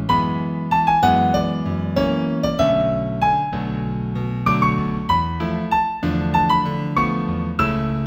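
Piano playing a new-age instrumental in A major: a melody of single struck notes, about two or three a second, over held low chords.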